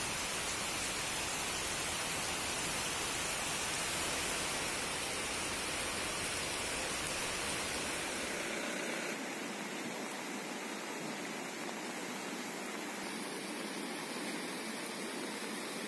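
Fast-flowing floodwater rushing, a steady roar of water noise with no distinct events. About nine seconds in, the deep rumble drops out and it turns to a thinner hiss.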